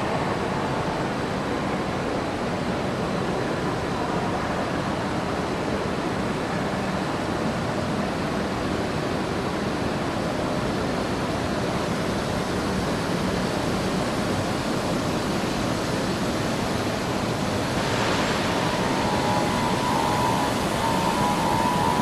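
Steady rushing noise with a low hum from parked electric Zentralbahn trains standing under the station hall, their ventilation and air-conditioning running. Near the end a steady whine of about 1 kHz joins in and it gets a little louder.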